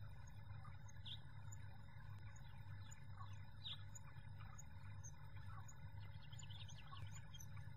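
Faint outdoor ambience: a steady low rumble of breeze with scattered short bird chirps, two of them a little louder about a second and nearly four seconds in.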